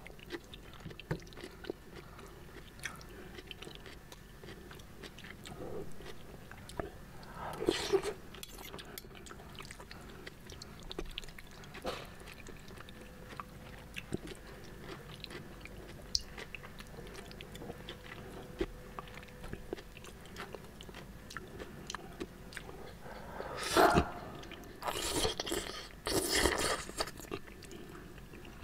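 A person eating seblak: wet chewing and biting with small clicks throughout. There are a few louder bursts, one about eight seconds in and several close together near the end.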